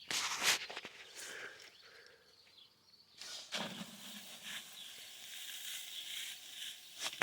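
Chicken feed pouring from a feed bin's outlet into a bucket: a steady hissing rush that starts suddenly about three seconds in, after a few brief clattering handling sounds.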